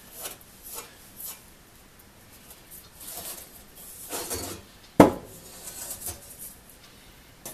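A one-man crosscut saw's steel blade being handled on a workbench: hands rubbing and sliding along the blade and teeth, with a single sharp knock about five seconds in as the saw is shifted, and a few lighter knocks after it.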